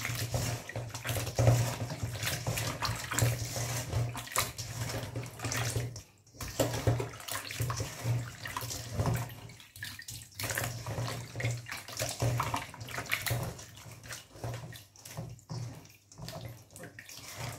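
Whole sardines (tamban) being rubbed and swished by hand in salted water in a metal bowl: irregular splashing and sloshing, with a brief pause about six seconds in. This is the last salt wash that draws blood out of the fish before brining.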